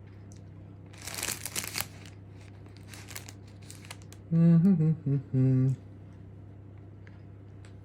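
Plastic food packet crinkling as it is handled, in bursts about a second in and again about three seconds in. Then comes a short hummed vocal sound in three parts, louder than the crinkling.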